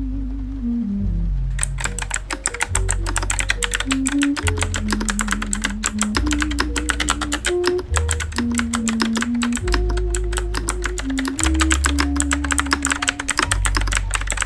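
Fast typing on a Yunzii QL75 retro typewriter-style mechanical keyboard: a dense run of key clacks starting about a second and a half in and stopping near the end, over background music with a bass line.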